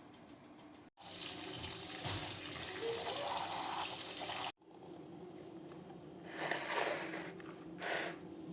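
Running water, like a tap running into a sink, for about three and a half seconds, starting and stopping abruptly at edit cuts. After it come two short, softer splashing bursts.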